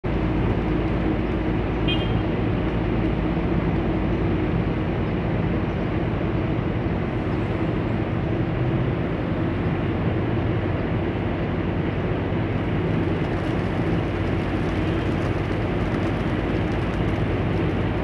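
Steady low mechanical hum with street noise, and a short high chirp about two seconds in.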